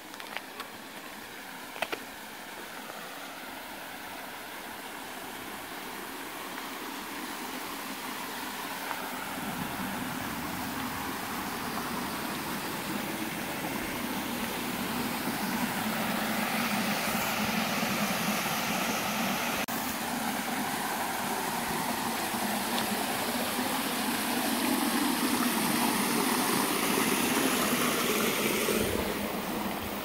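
Rushing water of a spring-fed creek's small waterfalls, growing steadily louder, then falling off suddenly near the end. A couple of sharp clicks sound within the first two seconds.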